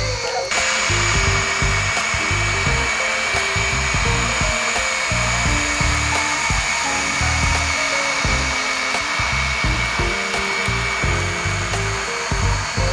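Electric motor whine of a Huina radio-controlled toy excavator driving on its tracks, pulling a line of plastic toy trucks, a steady high whine starting about half a second in. Background music plays underneath.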